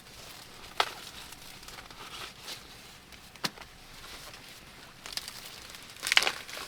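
Dry material crinkling and rustling, with sharp snaps about a second in and midway, and a louder cluster of snaps near the end.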